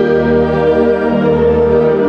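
University concert band playing a slow passage: wind instruments holding a sustained chord over a low bass note, conducted live.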